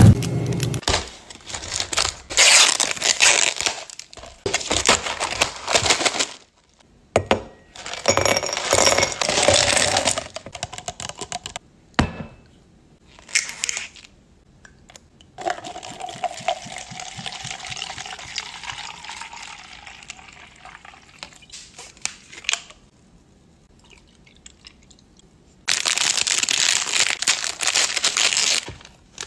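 Plastic ice-pop packaging crinkles and rustles in the first seconds. About halfway, a bottle cap is twisted off and a drink is poured over ice into a plastic cup for several seconds. Near the end, an ice-pop wrapper is torn open with crinkling.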